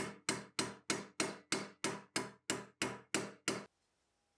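Metal hammer tapping a steel rivet at the hinge of a cast-iron antique clothes iron, a steady run of about a dozen strikes, roughly three a second, each ringing briefly, stopping about three and a half seconds in.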